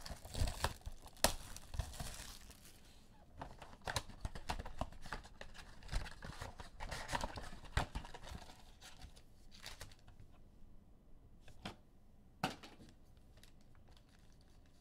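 Panini Prizm football card packs being torn open by hand, the foil wrappers tearing and crinkling as the cards are pulled out. Busy tearing and rustling for the first eight or nine seconds, then only a few scattered rustles.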